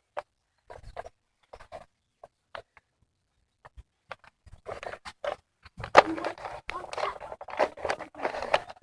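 Scattered footsteps, knocks and clicks, then from about four and a half seconds in a dense stretch of scuffling and rustling as people move about.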